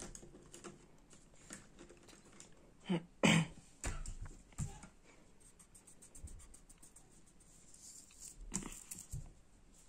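Coloured pencil scratching on paper in short strokes as a letter is coloured in, with light taps. Two short, louder sounds come about three seconds in.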